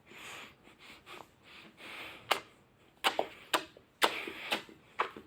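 A man kissing a cat, giving a run of short, sharp kissing smacks about half a second apart over soft breathing.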